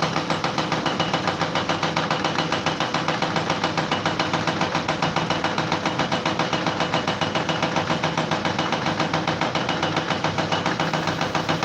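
An engine running steadily with a rapid, even pulsing of about seven or eight beats a second.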